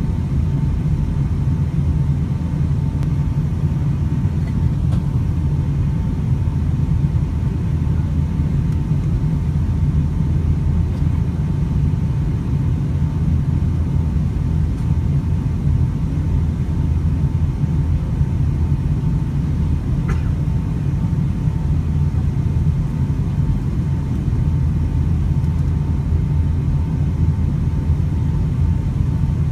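Passenger-plane cabin noise on the descent to land: the steady low rumble of engines and rushing air heard from inside the cabin, with a faint steady high tone above it.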